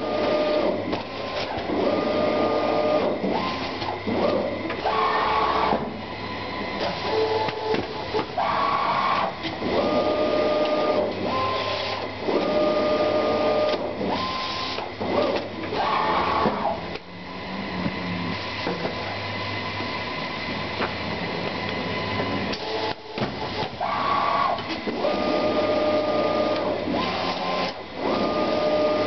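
Automatic box-opening machine at work: its motor-driven head makes repeated whines of about a second each, at two steady pitches, with clicks between them. For several seconds past the middle only a quieter steady hum is heard.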